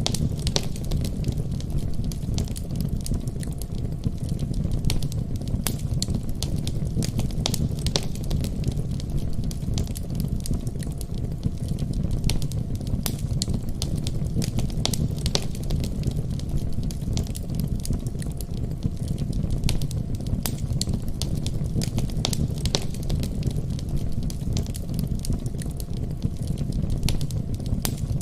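Wood fire burning in a fireplace: a steady low rumble of flames with frequent sharp irregular crackles and pops.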